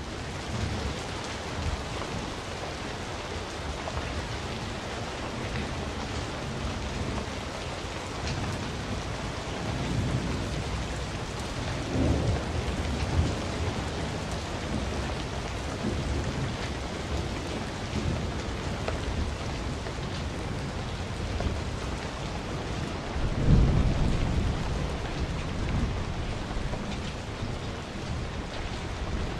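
Steady rain with low rolls of thunder, swelling twice, near the middle and near the end.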